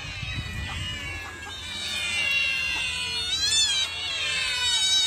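A group of cats and kittens meowing all at once, many high cries overlapping, growing louder about two seconds in.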